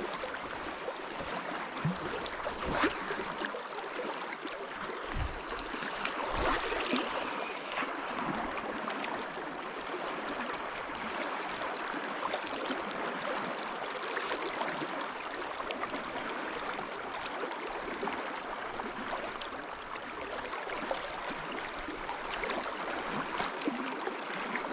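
Steady rush of flowing river water, with a few soft knocks in the first several seconds.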